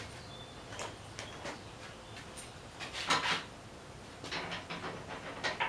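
Irregular light metal clicks and clatter as a washer and nut are fitted onto a threaded rod. The clatter is thickest about three seconds in and again from about four to five and a half seconds.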